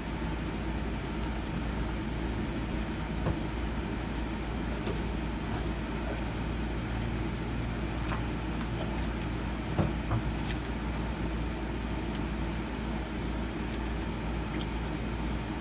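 A steady low machine hum, with a few light knocks and clunks of parts being handled; the sharpest knock comes about ten seconds in.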